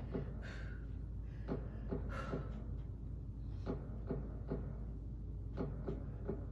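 A string of irregular dull thumps and taps, a dozen or so, over faint background music.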